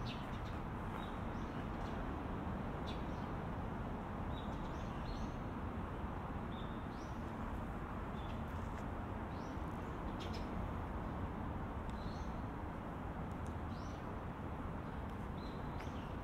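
Small birds chirping in short, high notes, one every second or so, over a steady low background hum.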